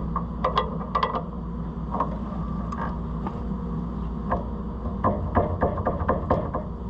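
Hand tools working on the combine's gathering-chain tensioner: a scattering of sharp metallic clicks and clinks as a wrench turns the spring bolt, thickest about five seconds in. A steady low hum runs underneath.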